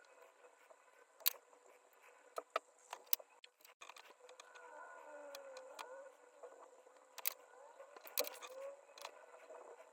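Faint, scattered ticks and clicks of eggshell being picked and cracked off a raw egg, a few sharper than the rest, with soft squeaky rubbing in the middle and again near the end.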